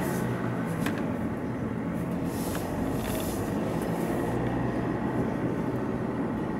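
Alfa Romeo Giulia Veloce's 2.2 diesel engine and tyre noise heard from inside the cabin while driving, a steady hum.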